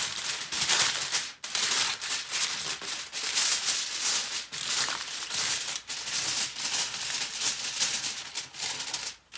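Aluminum foil crinkling and crackling as it is pressed down and crimped tight around the rim of a metal baking pan to seal in the steam, with a couple of brief pauses.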